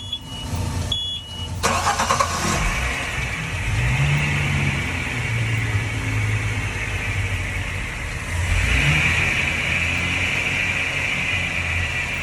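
Two short warning beeps from the helm, then a boat's inboard engine cranks and catches about two seconds in and runs, revved up and back down briefly twice. This is the engine start of a Regal 2860 Commodore express cruiser.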